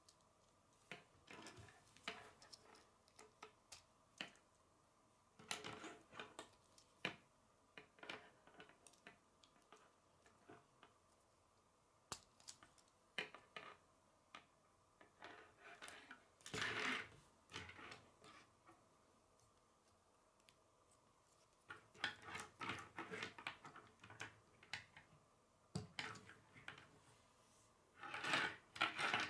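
K'nex plastic rods and connectors clicking and rattling as they are handled and their joints bent into place, with the parts knocking now and then on a wooden tabletop. The sounds are faint scattered clicks and short rattling clusters with quiet gaps between.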